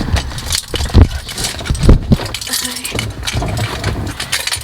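Close handling noise: rustling, knocks and a jangle of keys, with two sharper knocks about one and two seconds in.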